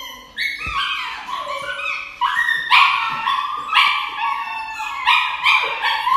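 A dog crying out while held for an injection at the back of its neck: a run of loud, high yelping and howling cries, about two a second, each starting with a sharp jump up in pitch.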